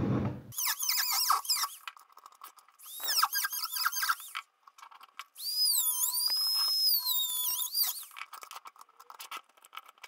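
Handheld rotary tool with a small cutting bit grinding a slot through a plastic panel. There are three spells of high whine whose pitch dips and recovers as the bit bites, the last and longest one about two seconds, with scratchy clicks between and after them.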